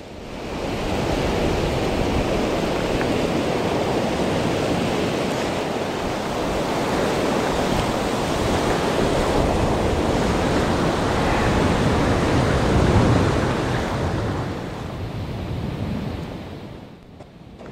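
Surf breaking and washing up over the sand, a steady rush that comes up about half a second in and fades near the end, with wind buffeting the microphone.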